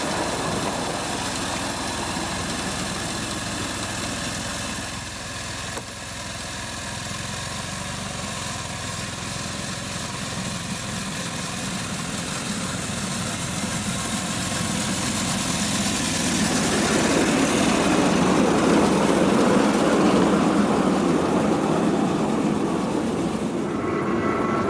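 A 7¼-inch gauge miniature railway locomotive with its train running on the track. It is a steady engine-like running sound that grows louder about two-thirds of the way through.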